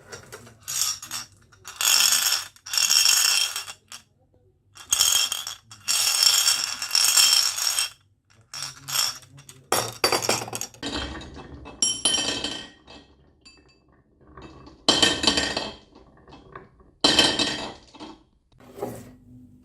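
Marbles rolling and clattering down a wooden marble run, clinking in a series of separate bursts of a second or so each, about a dozen in all.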